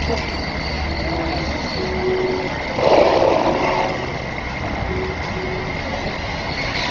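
Vehicle engine noise running steadily, with a louder rush about three seconds in.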